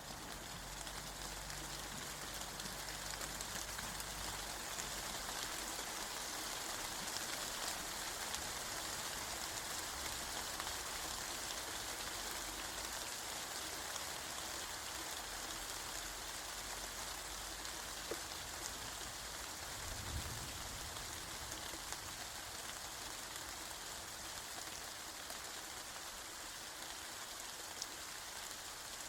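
Steady rain falling, an even hiss with a few faint ticks of drops and a brief low thud about twenty seconds in.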